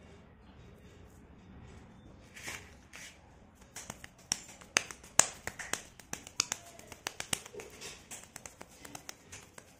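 Hands handling wet clay balls studded with slate pencils over a steel plate: quiet handling at first, then from about four seconds in a run of sharp, irregular clicks and taps.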